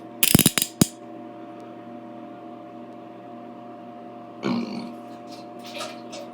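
Handcuff ratchet clicking: a quick run of sharp metal clicks in the first second as the bow swings through the lock, then two softer, shorter noises later, over a steady low hum.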